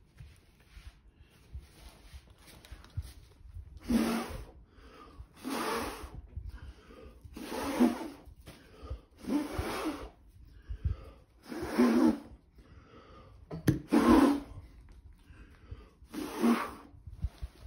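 A person blowing hard through the mouth onto wet acrylic paint to push it across the surface in a Dutch pour. About seven strong puffs come roughly every two seconds from about four seconds in, with quieter in-breaths between.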